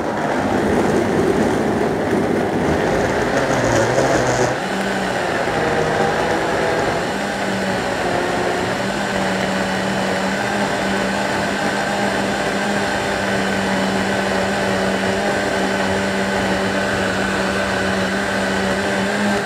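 Countertop blender running at high speed, chopping pineapple peels and ginger in water. It sounds rough and uneven for the first four and a half seconds, then settles into a smoother, steady hum as the mix turns to a purée, and it starts to wind down at the very end.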